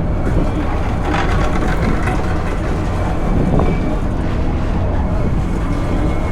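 Kintetsu Nishi-Shigi Cable funicular car climbing its steep incline: the steady low rumble of the car running on its rails, with a few brief louder noises about a second in and again in the middle.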